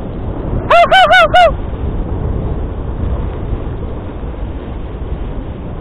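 A musher's voice giving four quick hooting calls, 'hu-hu-hu-hu', to urge a four-dog sled team on, about a second in. Under and after them, a steady rushing noise from the sled moving over snow.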